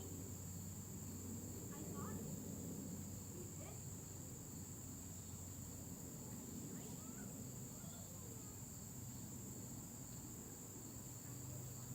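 Faint, steady insect chorus, crickets or similar, holding one constant high-pitched drone over a low background rumble.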